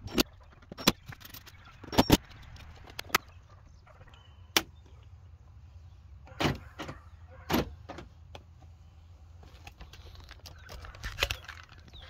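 A string of separate sharp plastic clicks and clunks from the door trim and switch panel being handled and snapped back into place, about nine in all, spaced irregularly.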